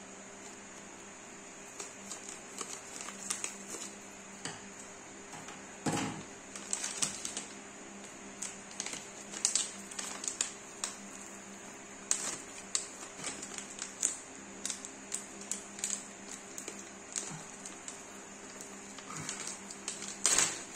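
Thin transparent plastic packet crinkling and crackling in the hands as it is pulled open, in irregular clusters of crackles with louder rustles about six seconds in and near the end. A faint steady hum runs underneath.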